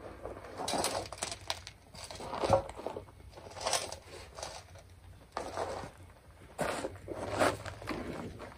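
Footsteps shuffling and crunching on gravel, mixed with rustling and handling noises, in irregular bursts.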